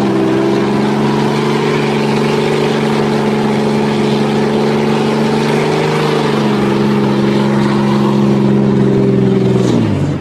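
Pickup truck doing a burnout: the engine held at steady high revs while the rear tyres spin in place, with a slight dip in pitch about six seconds in. The sound cuts off abruptly near the end.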